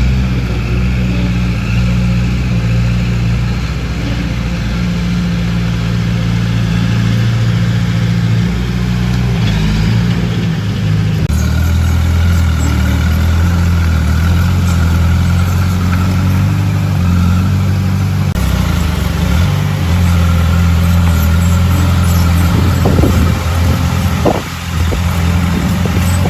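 Diesel engine of heavy earthmoving machinery running steadily under load, its pitch shifting abruptly a couple of times.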